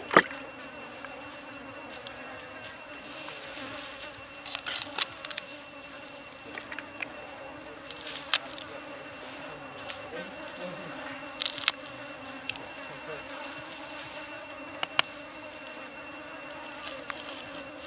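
Large knife chopping spring onions and chili on a wooden stump chopping block: about a dozen sharp knocks at irregular intervals, some in quick runs. A steady insect drone runs underneath.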